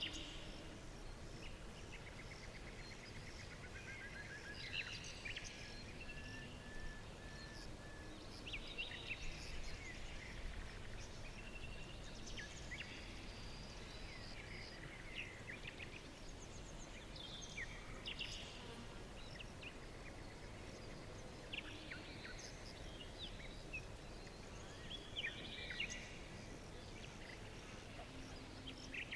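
Several songbirds calling and singing in a forest: short chirps, quick trills and whistled notes coming every second or two, over a soft steady background hiss.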